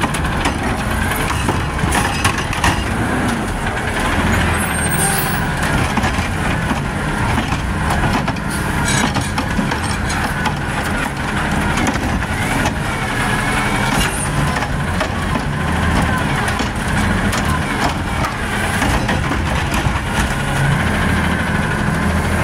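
Automated side-loader garbage truck's engine running and revving hard as its arm lifts and tips a cart into the hopper, with scattered knocks and clatter of the cart and dumped trash.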